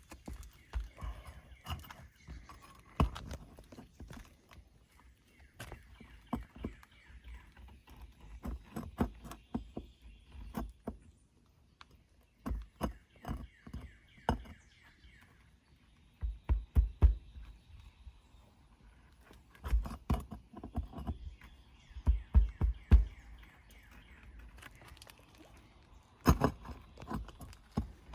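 Irregular knocks and taps in short clusters, from hand work on an asphalt shingle roof during a shingle repair. Between them a bird trills several times.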